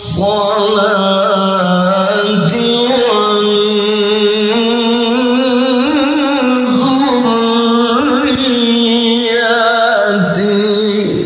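A man's solo voice chanting Qur'anic recitation (tilawah) in the melodic qori style through a microphone. It is one long phrase held without a break, with quick wavering ornaments and slow rises and falls in pitch, and it ends right at the close.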